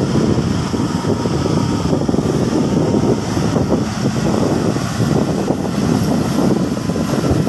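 Diesel engine of a Mercedes-Benz truck running steadily under a heavy load of stone blocks, with wind buffeting the microphone.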